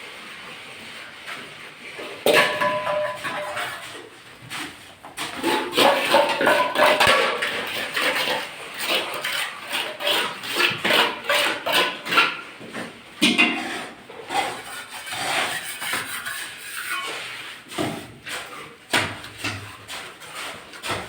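Irregular knocking and clinking of hand tools on a construction site, many sharp strikes with brief metallic ringing among them.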